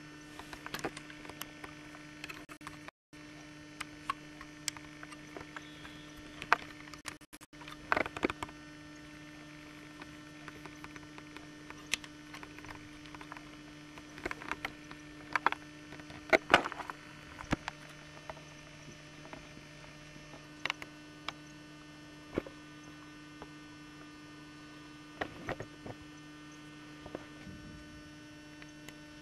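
Steady low electrical hum, with scattered sharp clicks and knocks, the busiest stretch about halfway through.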